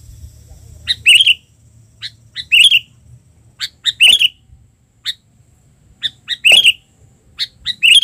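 Albino sooty-headed bulbul (kutilang) calling: five short, loud chattering phrases, each led by a few sharp high notes and coming every second and a half or so.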